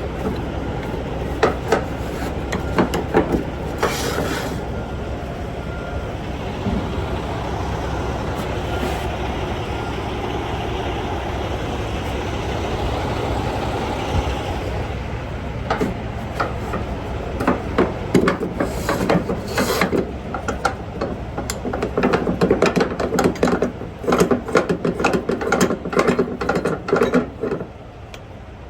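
Clicking, rattling and knocking of load-securing gear being worked on a flatbed trailer, over a steady background noise; the clatter grows much denser in the last third.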